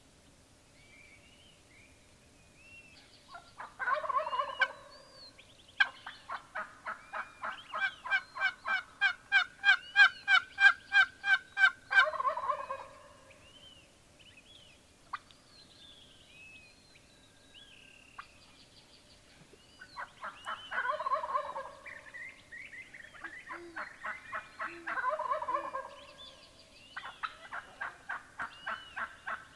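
Gould's wild turkey gobbling several times, each gobble a short burst. Between the gobbles come long runs of even turkey yelps, about three or four a second, and a gobble breaks in right at the end of the first run. Small birds chirp faintly.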